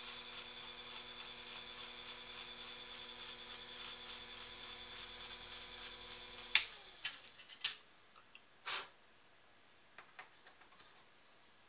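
Small electric motor beside the bench shaper running with a steady hum, switched off with a sharp click about two-thirds through, its pitch falling as it spins down. A few light clicks and knocks of metal parts being handled follow.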